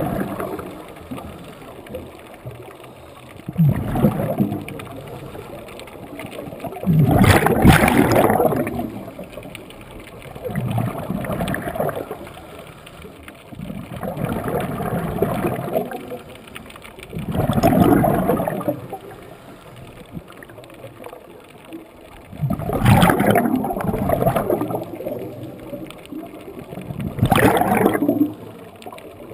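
A scuba diver breathing through a regulator underwater: a rush of exhaled bubbles about every four seconds, with quieter stretches between breaths.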